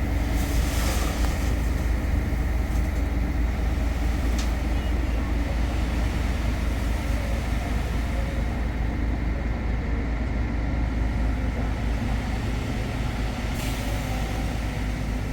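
A motor vehicle's engine running steadily with a constant low rumble.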